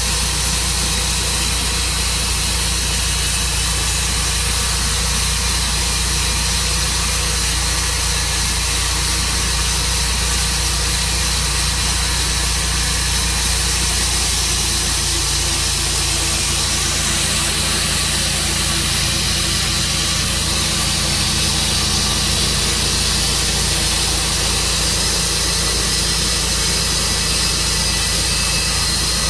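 Sawmill engine running steadily under a strong, even hiss, as the mill works through a cherry log; its low tone shifts slightly about halfway through.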